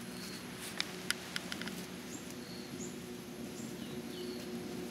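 Outdoor background sounds: a few short high chirps and whistles and a quick run of light clicks about a second in, over a low steady hum.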